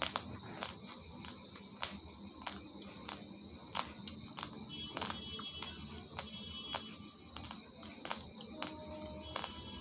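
Raw basmati rice grains crunching between the teeth: sharp, dry cracks coming irregularly about one to two times a second.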